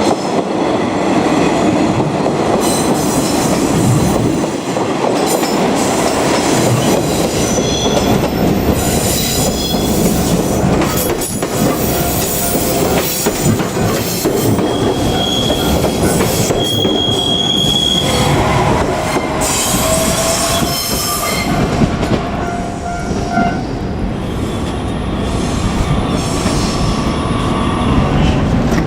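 Train running past at close range: a continuous loud rumble of wheels on the rails, with wheel squeal. A high squeal stands out about halfway through.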